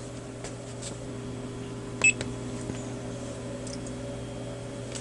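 Steady electrical hum from bench test equipment, with several overtones held level. There are a few light clicks, and about two seconds in a sharp click with a brief high tone.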